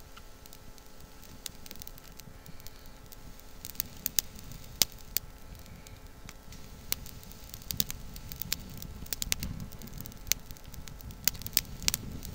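Small kindling fire of dry twigs and grass catching: sharp crackles and pops, sparse at first and coming thicker in the second half, over a low rushing sound as it is blown into flame.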